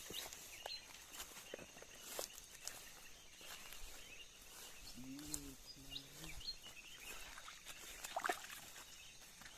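Scattered light crackles and snaps of someone moving through undergrowth, over a steady thin high insect drone. A short low hum, like a voice or animal, comes about five seconds in.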